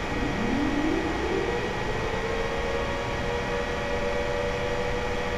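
Software-synthesized imitation of a Model 2 mechanical warning siren playing back: it winds up, rising in pitch over about two seconds, then holds a steady wail of two close tones, over a constant hiss.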